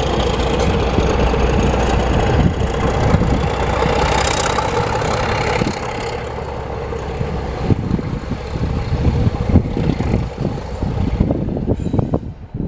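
Class 31 diesel locomotive's English Electric 12SVT engine working under power as it moves off with its train, a steady engine note that drops away after about six seconds as it draws off. From then on, irregular clicks and knocks from the train's wheels on the track.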